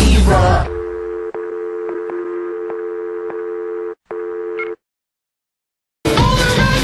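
Telephone dial tone: two steady tones held together, with faint ticks, cutting out for a moment about four seconds in and stopping just before five seconds. It follows the tail of a rock song and is followed by a second of silence, then the music starts again near the end.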